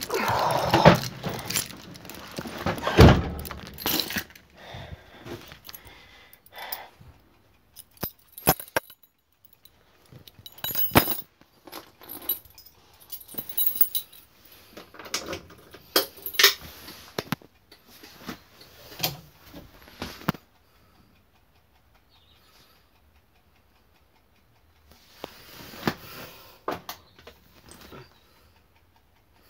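Keys jangling with clicks and knocks from handling in a Land Rover cab, and a heavy thump about three seconds in. The engine is not running, and it goes almost silent for a few seconds near the end.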